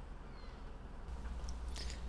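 Low steady rumble of a car heard from inside its cabin as it reverses slowly at near-idle engine speed, growing slightly about halfway through.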